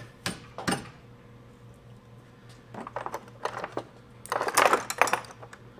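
Small metal parts and tools clinking and clicking as they are handled: two sharp clicks at the start, a short run of clicks about three seconds in, and a busier, louder clatter about four and a half seconds in.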